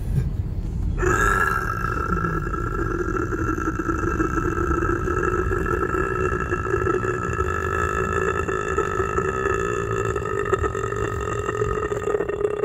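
A long, steady, throaty burp-like vocal drone held at one pitch, starting about a second in, over the low rumble of car road noise.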